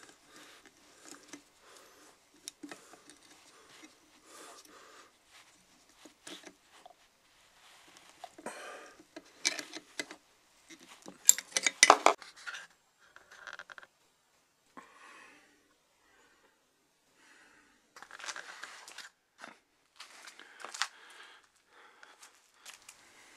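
Small hand-tool work on the metal fittings of an antique iron: intermittent metallic clicks, taps and short scrapes as a nut driver tightens the screw of the rear wire stand. The sounds come in clusters, loudest about halfway through.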